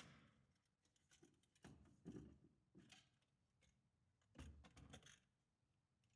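Near silence with a few faint plastic clicks and light knocks, spread out over several seconds: the airbox cover latches on a Polaris Ranger XP 1000 being unclipped and the cover handled.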